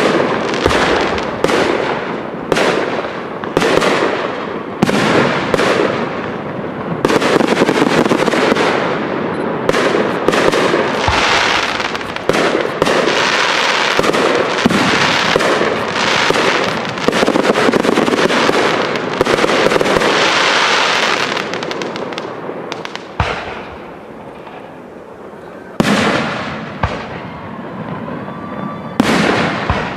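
Aerial fireworks display: shells burst in quick succession, one bang after another. Past the middle the bursts merge into one continuous din for several seconds, then thin out to a few single bangs near the end.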